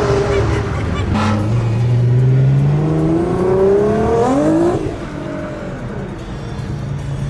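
Car engine revving up, its pitch climbing twice, then falling away and quieter for the last couple of seconds.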